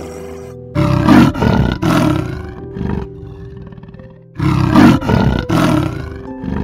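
A large animal roaring in two long, rough bursts, about a second and about four and a half seconds in, over steady background music.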